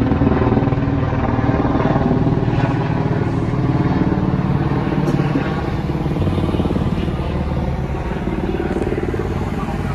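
Motor vehicle engines running steadily, the engine note shifting lower about six seconds in.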